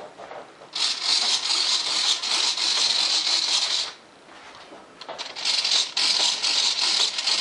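Hobby servos swivelling the thrust-vector nozzle of an RC jet: a rattly buzz in two bursts of about three seconds each, a little over a second apart.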